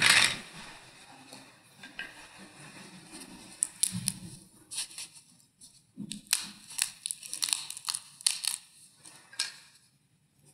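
Scattered small sharp clicks and light taps of objects being handled on an altar, several a second from about three and a half seconds in and stopping near the end, with a short louder knock or rustle at the very start and a couple of soft low thuds.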